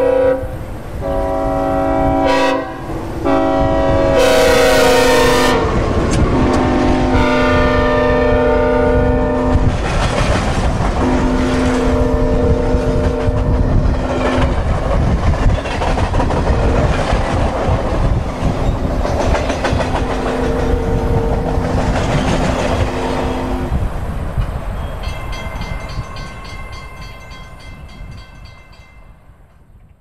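Synthesized Nathan K5HL five-chime train horn sounding a series of long blasts and one short blast over the rumble and clatter of a passing train. The chord drops in pitch about five seconds in as the train goes by, and the later blasts sound lower. The train noise fades away near the end, with a high ringing tone in the last few seconds.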